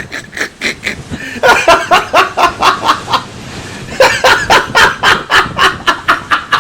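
A person laughing hard in rapid, rhythmic bursts of about four or five a second, with a short pause about three seconds in before the laughter picks up again.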